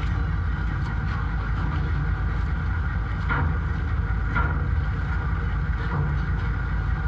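Steady low engine rumble of a vehicle, with a few faint knocks or clatters over it.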